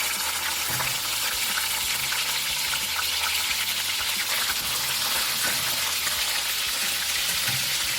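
Snail meat frying in hot oil in a frying pan, a steady sizzle.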